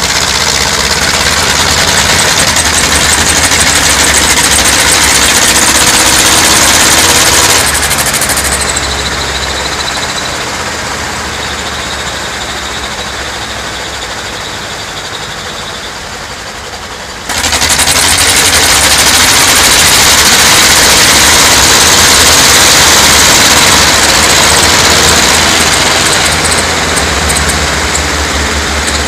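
A row of vintage Zetor diesel tractors running together. They are revved loud, then throttled down about a quarter of the way in and fade to a lower run, then all open up again at once a little past halfway and stay loud.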